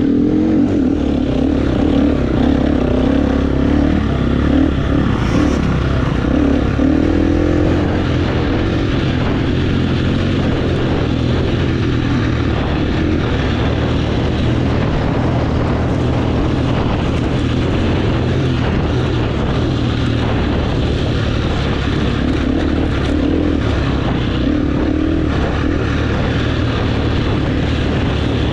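GasGas enduro dirt bike engine running while being ridden, its pitch rising and falling with the throttle.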